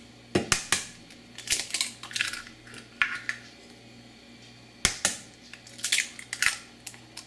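Eggs being knocked and cracked open over a stainless steel bowl: a series of sharp taps and eggshell crunches in small clusters, over a faint steady low hum.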